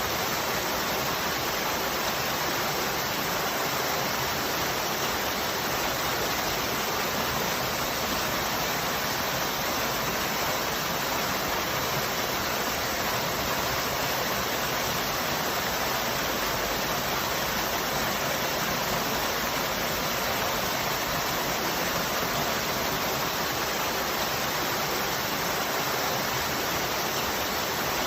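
Waterfall: the steady rush of falling water, an even hiss that does not change.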